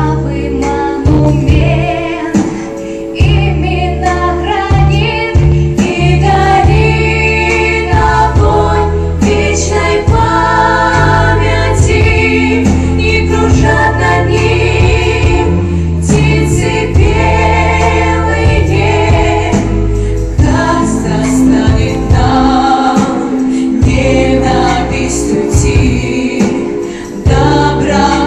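A vocal ensemble singing a song together over an instrumental accompaniment, with sustained bass notes under the voices.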